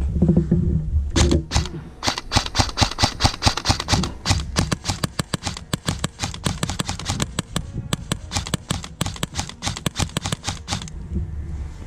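Airsoft rifle firing a long string of quick single shots, several a second, with a brief pause partway through.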